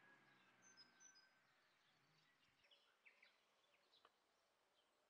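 Near silence: faint outdoor background hiss with a few faint, short, high bird chirps.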